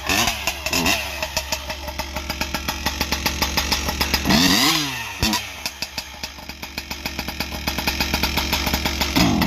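Husqvarna 592XP two-stroke chainsaw with an expansion pipe, blipped twice near the start and revved up and back down about halfway, then idling with a rapid, uneven firing. The rough bottom end is what the owner takes for the autotune running too lean with the pipe.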